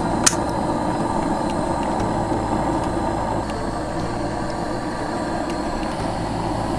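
Gas stove burner under a pressure cooker, burning with a steady rushing noise, with one sharp click about a quarter of a second in.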